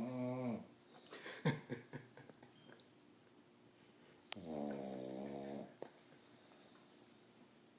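A sleeping pet snoring: a pitched snore trails off about half a second in, followed by a second or so of snuffles and clicks, then another pitched snore of just over a second about four and a half seconds in.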